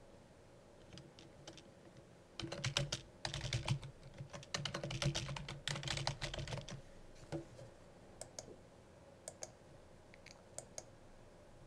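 Typing on a computer keyboard in two quick runs of keystrokes, then a few single clicks spaced about a second apart.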